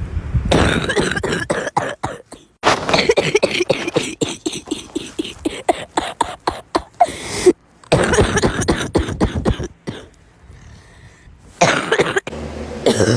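People coughing in repeated fits of many quick coughs, several a second. The fits break off abruptly, with a quieter stretch of about a second and a half near the end before one more short fit.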